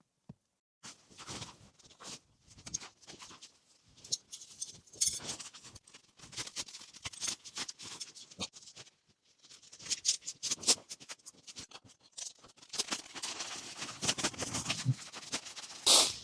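Irregular close-up rustling and clicking in uneven bursts, with brief near-silent pauses, and a sharper, louder rustle near the end.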